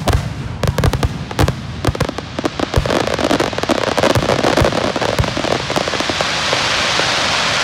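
Aerial fireworks going off in a rapid volley of sharp bangs, with the crackle of glittering stars. About six seconds in, the bangs give way to a steady swell of crowd applause and cheering.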